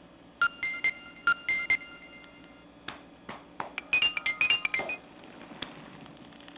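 Nokia 130's loudspeaker playing a short electronic ringtone melody from the Nokia E5: a few separate beeping notes, then several sharp clicks and a quick run of beeps near the middle, with a single click near the end.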